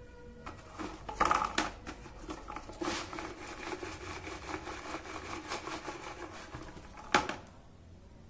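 A rod worked in a plastic bucket of ground, acid-soaked phone circuit boards: rapid clicking and scraping, with sharp knocks about a second in and a loud one near the end.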